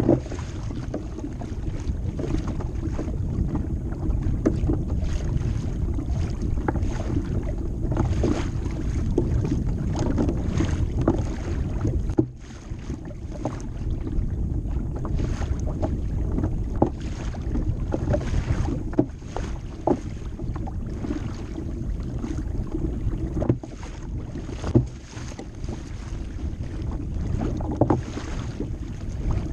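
Water splashing and lapping against the hull of a moving Hobie fishing kayak on choppy water, with wind rumbling on the microphone and now and then a sharper slap or knock.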